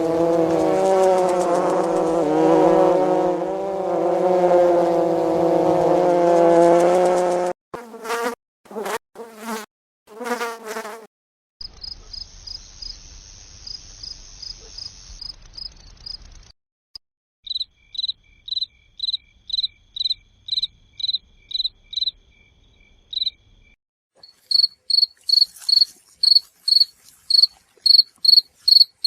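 A run of separate cricket recordings. First comes a dense, wavering insect chorus for about seven seconds, then three short buzzes. After that come quick trains of high cricket chirps, then single chirps about two a second, and near the end louder chirps about three a second.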